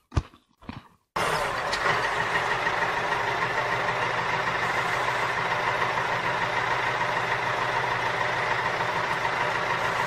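Tractor engine idling steadily, cutting in abruptly about a second in after a few brief short sounds.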